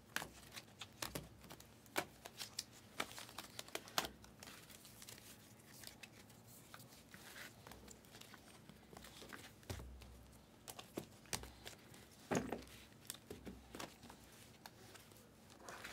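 Faint crinkling and rustling of a thin plastic card sleeve being handled, with scattered light clicks as a trading card is slid into the sleeve and a rigid plastic top loader.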